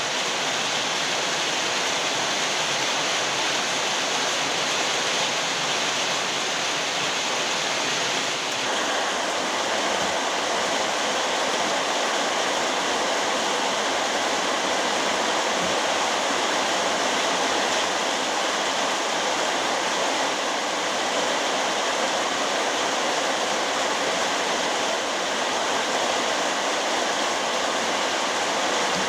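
Very heavy rain pouring steadily in a dense, even hiss. About eight seconds in, the sound changes slightly and loses some of its low rumble.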